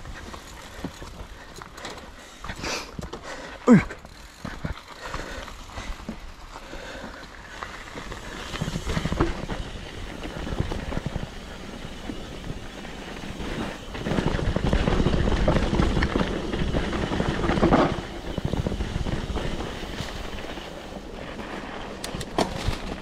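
Mountain bike rolling down a rough dirt trail: tyres on dirt and roots with the bike rattling and a low rumble, busiest about fourteen to eighteen seconds in. A rider shouts once about four seconds in.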